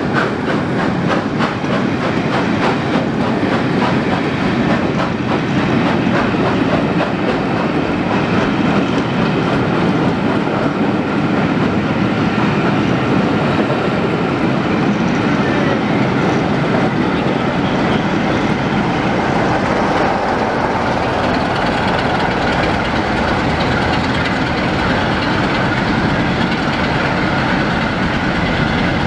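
Vintage passenger coaches rolling past at close range, their wheels clicking rapidly over the rail joints in the first few seconds, under a steady rumble of running gear.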